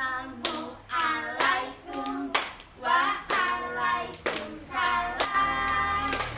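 Children singing a song together and clapping along, about two hand claps a second.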